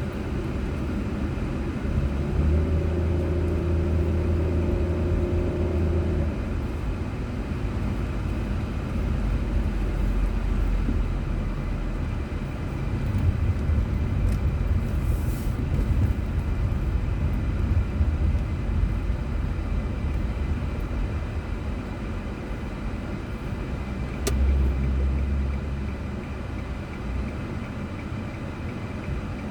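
Car driving on town roads, heard through a dashboard camera: steady engine and tyre rumble, with a stronger low hum between about two and six seconds in. A short hiss comes about halfway through, and a single sharp click about three-quarters of the way in.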